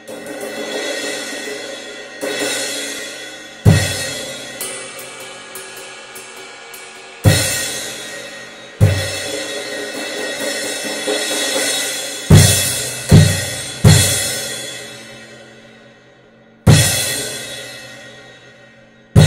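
Krest Fusion 18-inch thin crash cymbal struck with a drumstick about nine times, each crash ringing out in a long wash that fades over a few seconds. Most hits land together with a low bass drum kick, and a run of light quick ticks sounds between about four and seven seconds in.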